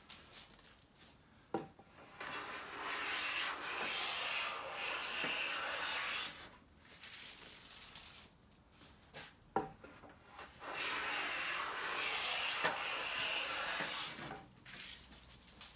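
Siegley StS #7 jointer-size bench plane cutting along a pine board: two long strokes of steady hissing shaving, each about three and a half seconds, with quieter gaps and a few sharp knocks between them.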